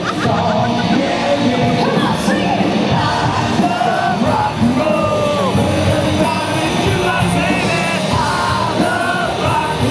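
Loud rock music with singing and yelling voices.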